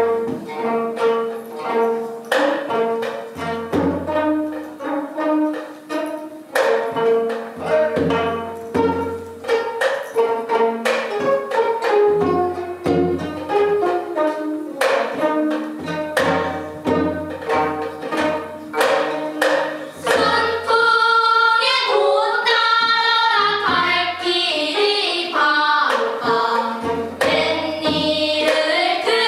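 Gayageum ensemble plucking a lively passage of many quick notes; about 20 s in, the young players start singing together over their gayageum, in gayageum byeongchang style (singing while playing).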